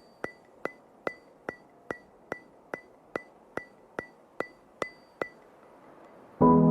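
Sharp, evenly spaced clicks, about two and a half a second and thirteen in all, each with a brief high ring, like a ticking intro effect; they stop a little after five seconds in. Near the end, soft ambient piano-like music starts.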